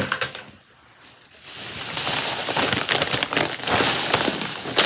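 Plastic packaging crinkling and rustling as it is handled close to the microphone, a dense irregular crackle that grows loud about a second and a half in.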